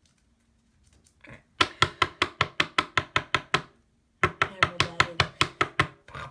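Rapid, rhythmic tapping, about seven or eight sharp strikes a second, in two runs with a brief break about four seconds in.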